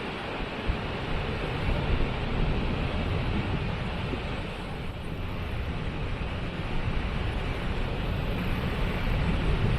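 Waterfall rushing: a steady, even noise of falling water with a deep low rumble.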